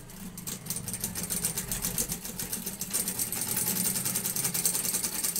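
FUTON industrial sewing machine running, stitching a reinforcing double line along a seam: a rapid, even run of needle strokes over the motor's hum, a little louder from about three seconds in.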